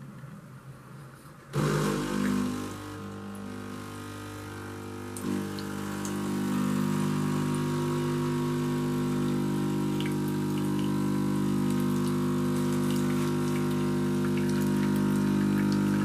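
Siemens EQ.300 automatic coffee machine running its pump with water flowing into the jug: a steady hum that starts suddenly about a second and a half in and gets louder about five seconds in.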